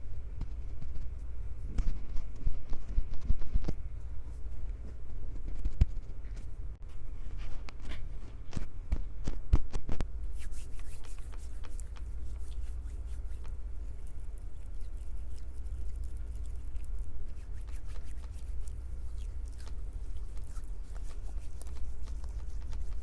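Hands gripping, squeezing and rubbing a Tascam recorder's microphones, close up: a steady low handling rumble with scattered knocks and thumps, turning about ten seconds in into a dense fine crackling.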